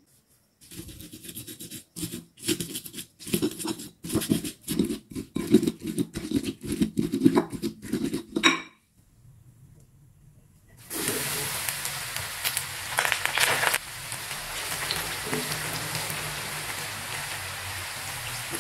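Stone pestle (ulekan) grinding chopped chillies, shallots and salt on a ribbed cobek grinding plate in rhythmic scraping strokes, about two to three a second. After a short pause, food drops into a pan of hot oil with a sudden loud hiss and goes on frying with a steady sizzle.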